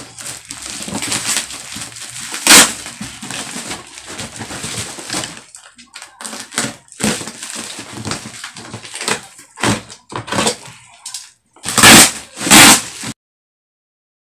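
Plastic parcel wrapping crinkling and tearing as it is cut and pulled open, with two loud rips near the end. The sound cuts off suddenly just before the end.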